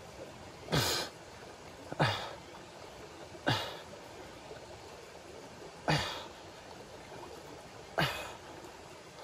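A man in chest-deep stream water blowing out hard through his nose and mouth five times, each a short, sharp exhalation of about half a second, over the steady rush of the stream.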